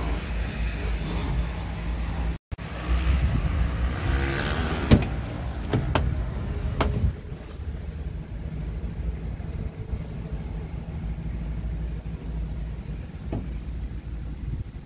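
Scania R tractor unit's diesel engine idling steadily, with a few sharp knocks and clicks about five to seven seconds in.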